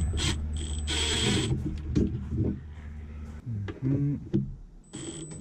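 Cordless drill/driver whirring in several short trigger bursts as it drives small screws, in the first second and a half and again near the end. A steady low hum runs underneath and stops about three and a half seconds in.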